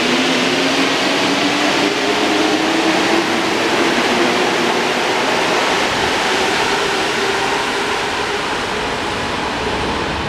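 Alstom NS93 rubber-tyred metro train accelerating away from the platform: the traction motors give a rising whine over the rushing roll of the train, the train's characteristic starting sound, easing off near the end as it leaves.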